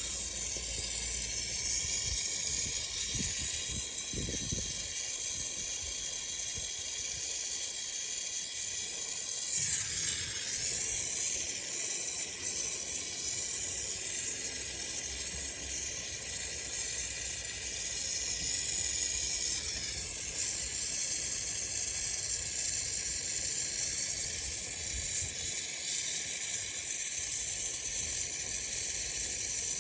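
Gas torch flame hissing steadily as it heats thin steel for brazing with silicone bronze rod. The hiss shifts briefly about ten seconds in, and a few low knocks come around three to four seconds in.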